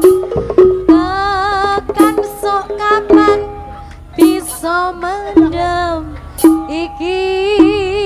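Live Javanese jaranan gamelan music: a wavering, sustained high melody line with vibrato over sharp drum strokes every second or so.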